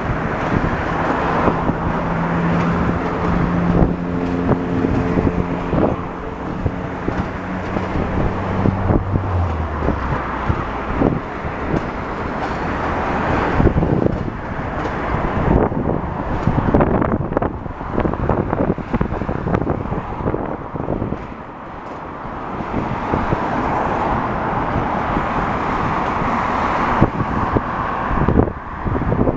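Road traffic running past, with wind buffeting the microphone. A steady engine drone in the first third drops in pitch in steps about nine seconds in, then fades.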